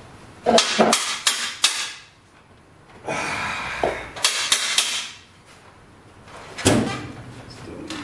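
Small machined metal parts being handled and set down on a workbench: quick clinks and taps, a short rustle about three seconds in, and one louder knock about seven seconds in.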